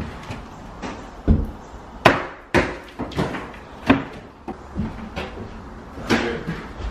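Demolition hammering: a series of irregular hammer blows striking wood and wall material, roughly one every half second to second, the heaviest about one and two seconds in.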